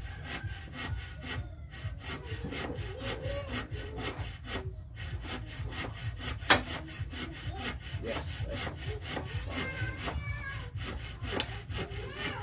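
Hand saw cutting through wood in quick, even back-and-forth strokes, with a single sharp knock about halfway through.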